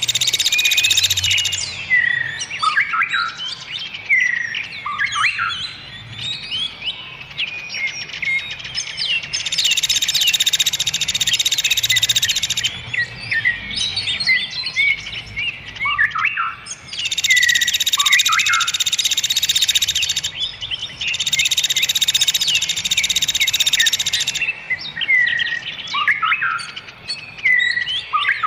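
Songbirds singing a dense mastering track: rapid, varied chirps and whistles, broken about every five seconds by a buzzing stretch about three seconds long that starts and stops abruptly.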